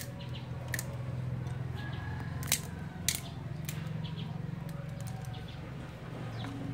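Wood fire burning in a clay stove, crackling with a few sharp pops, over a steady low hum.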